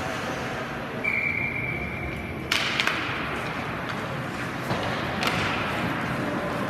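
Ice hockey play in a rink: sharp knocks of puck and sticks, the loudest about two and a half seconds in, with a couple more after it, over steady rink noise. Before the first knock, a steady high tone lasts about a second and a half.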